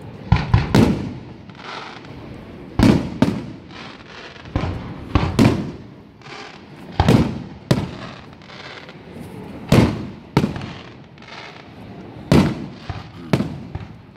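Aerial fireworks display: shells going off one after another as sharp bangs, about one a second, each trailing a brief echoing rumble.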